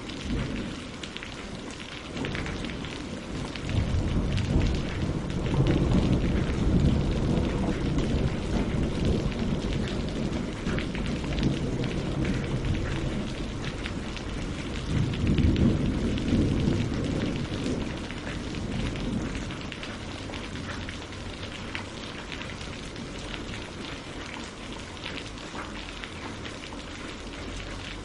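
Steady rain pattering on lake water and tree leaves, with long low rumbles of thunder swelling twice, about four seconds in and again around fifteen seconds.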